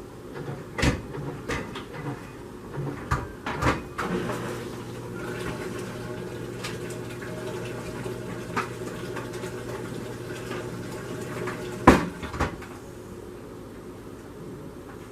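Several sharp clicks and knocks as SodaStream parts are handled and unscrewed. Then a steady running sound lasts about eight seconds and ends with one loud knock.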